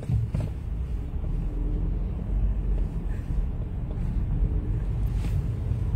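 Steady low rumble of a car's engine and tyres heard from inside the cabin while driving slowly in dense traffic.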